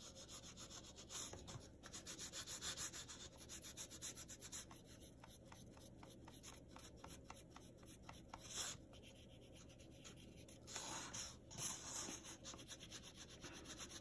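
Faint scratchy back-and-forth strokes of a blue oil pastel on a paper card, laid on lightly as a background colour. The strokes come in runs of a few a second, with short pauses.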